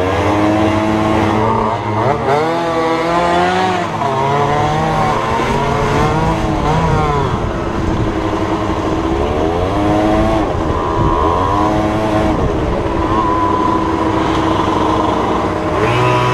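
Small 50cc two-stroke dirt bike engines revving, their pitch rising and falling over and over as the throttle is worked, with more than one engine heard at once.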